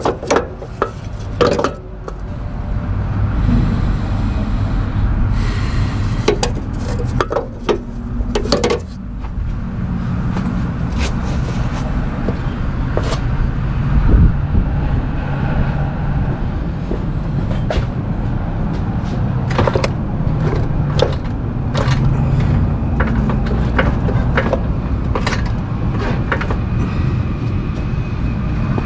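A steady low mechanical rumble that builds about two seconds in, with scattered sharp clicks and knocks of hand tools on metal, most of them in the first nine seconds or so.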